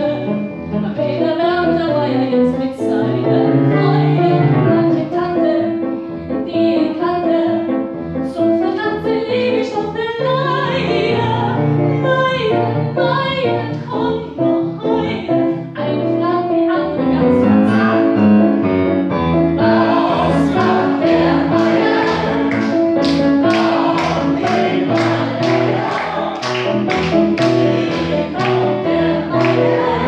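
A woman singing a cabaret-style song with piano accompaniment. A sharp rhythmic beat joins about two-thirds of the way in.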